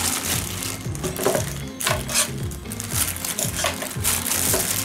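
Clear plastic bag crinkling and rustling as it is handled and opened, in irregular crackles, over background music with a repeating bass line.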